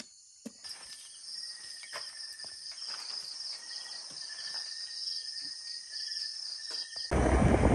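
Night insects, crickets, chirping in a fast, even, pulsing high trill, with a steadier high insect buzz under it and a few light clicks. Near the end a sudden loud rush of road and wind noise from a moving vehicle takes over.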